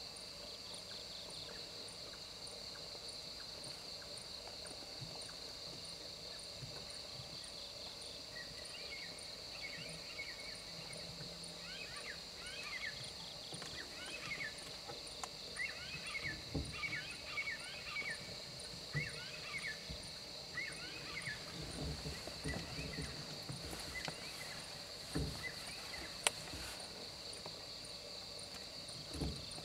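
Outdoor ambience: a steady high insect drone throughout. Bursts of short high chirps come through the middle, and a few low thumps in the second half.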